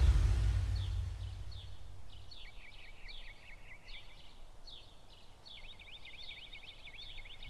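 Birds chirping: a string of short high chirps, then a rapid trill in the last two seconds. Under it a low rumble fades away over the first two seconds.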